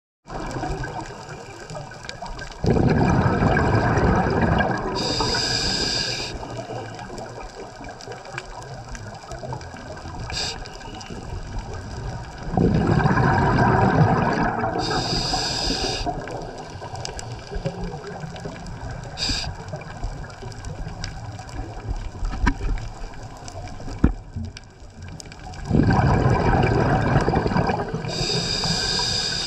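Scuba regulator breathing heard underwater: three long bursts of exhaled bubbles, about ten to twelve seconds apart, each ending with a brief higher hiss, over a steady underwater hiss.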